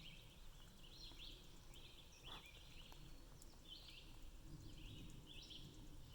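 Faint outdoor quiet with a bird calling in repeated short, high chirps every second or so.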